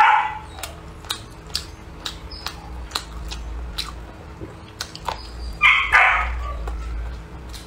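A dog barking: one bark at the start, then two barks close together about six seconds in, over small clicks of chopsticks on a bowl.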